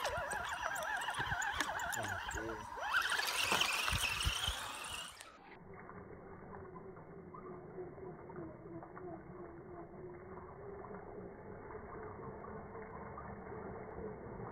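Electric drive motor and gearbox of a radio-controlled scale crawler whining, the pitch wavering up and down with the throttle. A louder burst of splashing water comes about three seconds in. After about five seconds the sound turns duller and quieter, leaving a faint steady whine.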